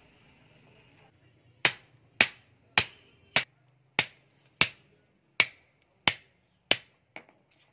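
Hammer striking the edge of a perforated sheet-metal sieve plate: about nine sharp blows a little over half a second apart, each ringing briefly, then a few lighter taps near the end.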